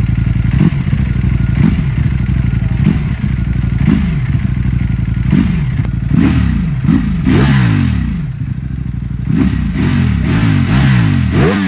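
Ducati Panigale V4 motorcycle's V4 engine idling and being blipped on the throttle: about a dozen quick revs, each rising sharply and falling back to idle, coming in faster bunches in the middle and near the end.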